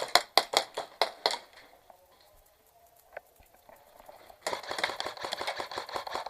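Airsoft guns firing: a quick string of shots in the first second and a half, then a rapid full-auto stream of shots from about four and a half seconds in.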